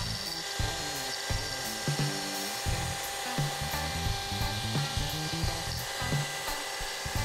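CNC Shark HD3's router spindle cutting out parts from thin plywood, a steady machining whine with shop vacuums running. Background music with a steady beat plays over it.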